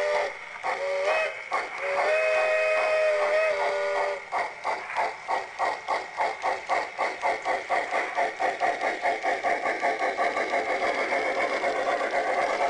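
Large-scale model steam locomotive's onboard sound system: three chime-whistle blasts, the last one long, then rhythmic steam chuffing at about five beats a second as the locomotive pulls away from its station stop.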